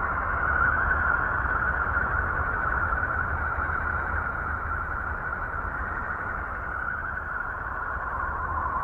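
The 'sound of Uranus': electromagnetic or plasma wave recordings of the planet converted into the audible range. It is a steady, slowly wavering hissing drone centred in the midrange, over a low rumble.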